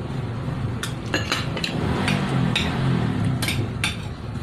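A metal spoon and ceramic soup bowl clinking: several short, sharp clinks of tableware handled during a meal.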